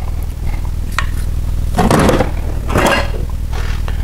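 Metal parts and tools handled during work on a Land Rover Defender 90's rear axle: a sharp click about a second in, then two short scraping clatters, over a steady low hum.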